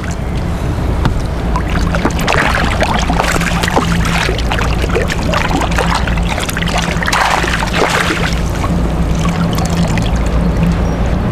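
A hooked bass splashing and thrashing at the water's surface beside a kayak as it is played in, in uneven bursts, over a steady low rumble.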